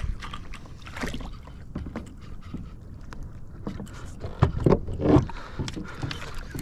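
Irregular knocks and clatter of gear against a plastic fishing kayak, with a cluster of louder thumps about four and a half to five seconds in.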